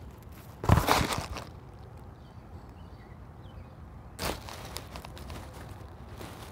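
Close rustling and crunching of grass and soil as a screw-in swing set ground anchor is worked into the ground by hand. There is a loud rustle about a second in and a shorter one about four seconds in.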